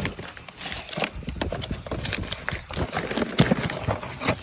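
Cardboard box being handled and opened: irregular knocks, taps and rustling.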